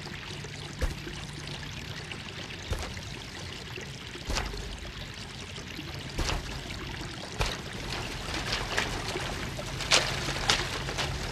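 Hoes chopping into dry soil: irregular dull strikes every second or two, coming more often near the end, over a steady hiss and a low hum.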